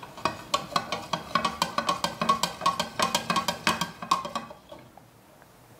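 Metal spoon stirring honey into a drink in a glass mug, clinking rapidly against the sides. The clinks fade out about four and a half seconds in.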